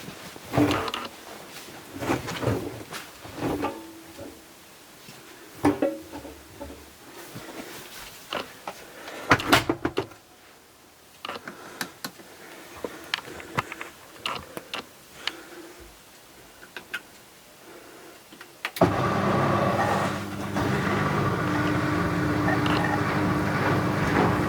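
Bauknecht WA 7778 W front-loading washing machine starting up: a run of scattered clicks and knocks, then about 19 seconds in a loud steady rushing hum with several steady tones starts suddenly and keeps going.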